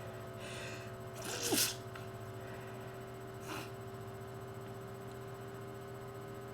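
A woman sneezes once, hard, from a heavy cold and allergies. A quick noisy intake of breath comes just before the loud sneeze, and a shorter, fainter breath follows about two seconds later, over a steady low room hum.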